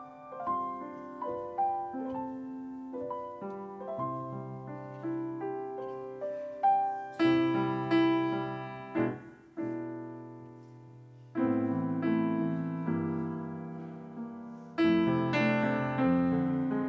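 Background piano music: a melody of single notes over held chords, with fuller, louder chords struck about seven, eleven and a half and fifteen seconds in.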